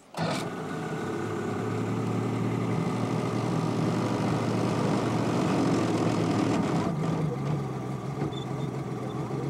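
A boat's motor comes on abruptly just after the start and runs steadily.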